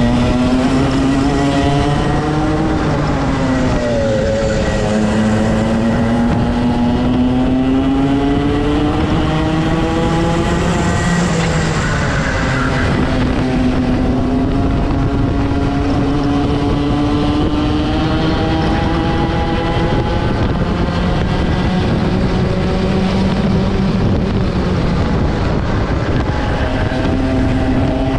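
Rotax two-stroke kart engine at racing revs. Its pitch climbs steadily, then drops off sharply, about four times, before climbing again, with wind and tyre noise underneath.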